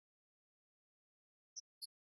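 Near silence, with two brief faint high-pitched blips near the end.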